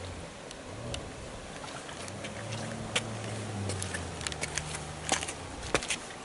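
An engine running low and steady for a few seconds, with scattered sharp clicks and taps over it, the loudest near the end.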